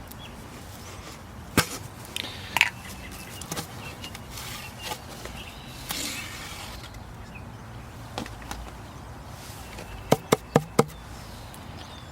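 Opening a taped package by hand: scratching and tearing at packing tape with rustling packaging and scattered knocks, then four quick sharp clicks a little after ten seconds in.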